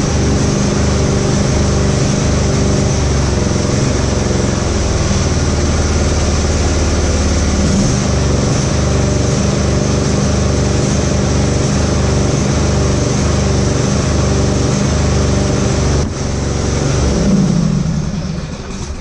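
Husqvarna GT52XLSi lawn tractor's 24 hp Briggs & Stratton V-twin running with a mild surge, its speed wavering; near the end the revs rise and fall once, then it stops. The surging comes from the carburettor, which the owner puts down to bad O-rings on its two jets.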